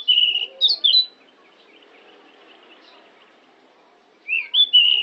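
Pied bushchat singing: a short phrase of high, quick whistled notes lasting about a second, then a pause, then the same phrase again near the end.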